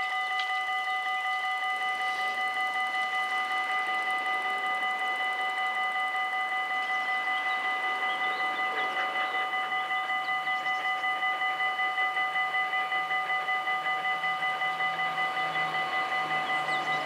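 Warning bells of a Dutch automatic half-barrier level crossing ringing continuously in a fast, even rhythm, sounding a few fixed tones: the crossing's warning for an approaching train.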